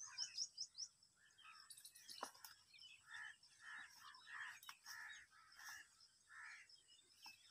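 Near silence: faint outdoor quiet with a few small bird chirps about a second in, then soft rustling every half second or so as a stick is pushed through grass and leafy bushes.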